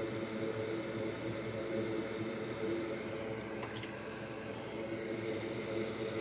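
Steady low hum and hiss of a fan running on a repair bench, with two faint ticks a little past halfway.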